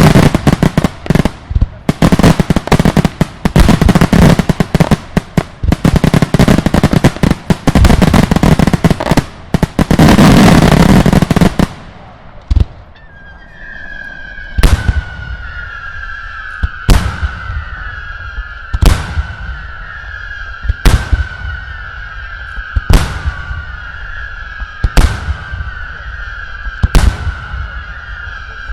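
Daylight fireworks: for about twelve seconds a dense, rapid barrage of loud explosive bangs and crackling. Then come single heavy bangs at an even pace, about one every two seconds, seven in all. A steady high whistle-like tone runs under the single bangs.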